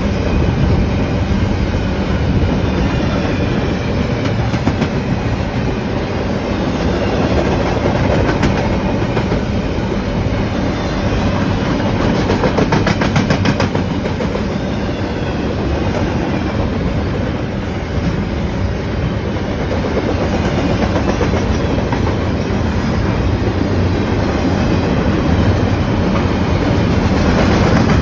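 Freight train cars rolling past steadily, wheels clattering over the rail joints, with a run of rapid clicks about halfway through.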